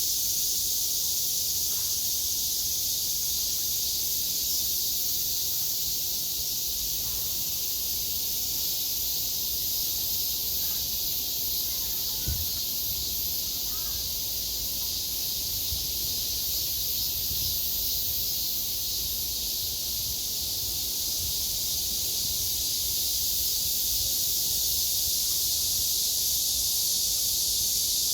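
Cicadas singing in a steady, continuous high-pitched chorus, with no breaks.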